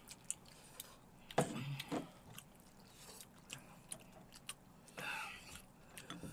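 Quiet table-eating sounds: chopsticks and spoons clicking against bowls, with chewing. There is a louder knock about a second and a half in.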